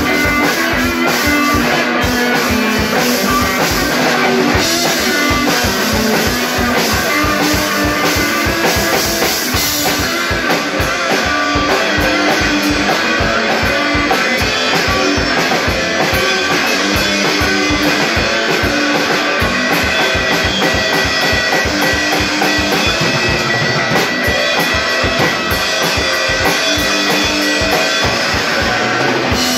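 Rock band playing loud: electric guitars over a full drum kit, with fast, steady drumming.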